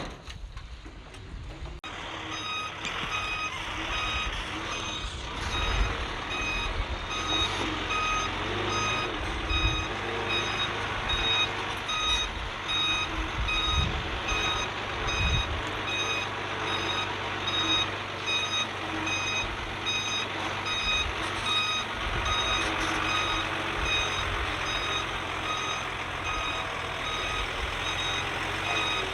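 Backup alarm of a heavy earthmoving machine beeping steadily as it reverses, over the rumble of its diesel engine. The beeping starts about two seconds in.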